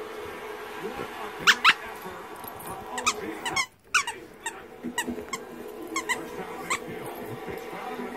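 Squeaker inside a plush hedgehog dog toy squeaking as a dog chews it: a dozen or so short, sharp squeaks, several coming two close together.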